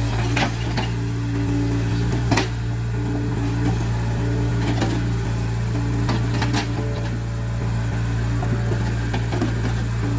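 Caterpillar 307C excavator's diesel engine running steadily under work, with a few sharp knocks, the loudest about two and a half seconds in.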